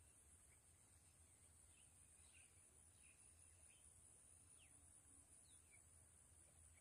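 Near silence: faint rural ambience with scattered short bird chirps over a steady, faint high-pitched hiss.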